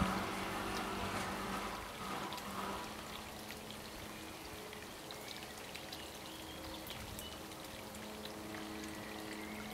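Steady trickling and pouring of running water, a little louder for the first couple of seconds, with a faint steady low hum underneath.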